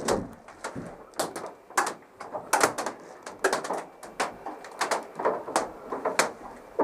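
Airsoft guns firing single shots in a firefight: about a dozen sharp cracks at irregular intervals, several in quick pairs.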